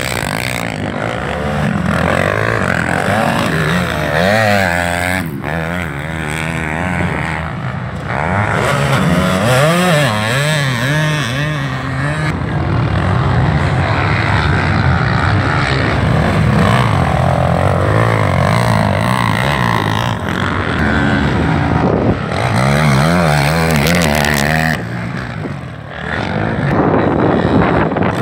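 Several racing quad-bike (ATV) engines revving hard and overlapping, their pitch rising and falling as the riders accelerate and shift around the motocross track.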